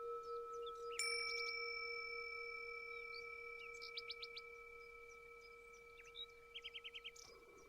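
A low bell tone rings and slowly fades with a gentle pulsing wobble, and a second, higher bell is struck about a second in and rings on. Small birds chirp over it in quick trills of short, falling notes, twice in the middle and later part.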